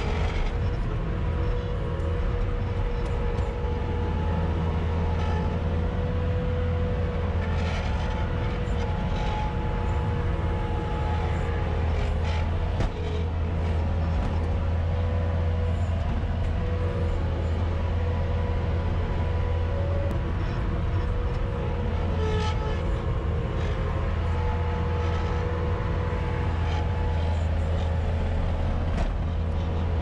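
Bobcat S250 skid-steer loader's diesel engine running steadily under load while pushing snow, heard inside the cab as a loud low drone with a steady whine above it and a few brief clunks.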